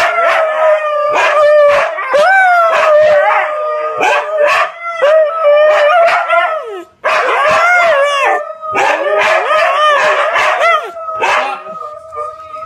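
Huskies howling and yapping: long, wavering howls held on one pitch, broken by many short, sharp yaps and barks, with a brief break about seven seconds in.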